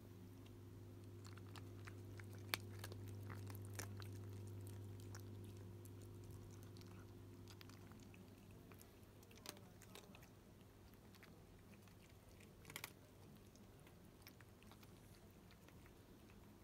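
A cat crunching dry kibble from a bowl, with sharp clicks now and then, over the steady low hum of a small 3 W aquarium pump driving a homemade water fountain.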